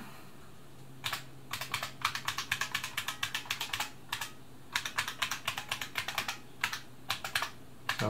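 IBM Model F buckling-spring keyboard typed on key by key along the letter rows, each press a sharp click, a test of the keys after repair. A quick run of presses starts about a second in, breaks off briefly in the middle and resumes more slowly.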